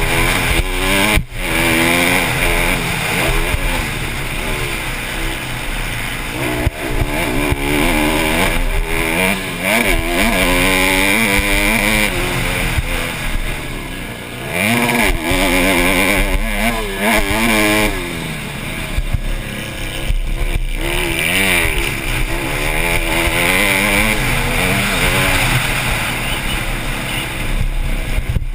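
Honda CRF150R's 150cc four-stroke single-cylinder engine ridden hard on a motocross track. Its pitch rises and falls again and again as the throttle is opened, closed and the gears change, over a steady rush of wind and noise.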